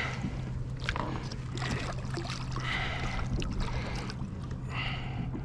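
Water splashing and sloshing against a kayak hull as a hooked fish thrashes at the surface alongside, in several short bursts, with a steady low hum underneath.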